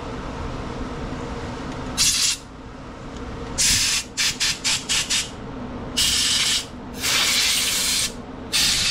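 Compressed-air blow gun hissing in short blasts through a lawn mower carburetor, blowing out water drawn in by ethanol fuel. There is one blast, then a quick run of about five puffs around four to five seconds in, then longer blasts near the end.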